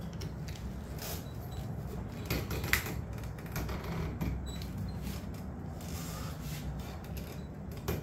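Irregular small clicks and scrapes of metal parts being worked by hand as the Air Venturi Avenger's barrel shroud is screwed on tight with a strap wrench, with one sharper click a little under three seconds in.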